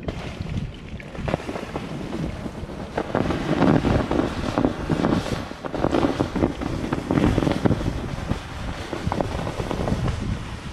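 Campfire being doused with water, hissing and sizzling as the water hits the hot fire and flashes to steam, loudest through the middle.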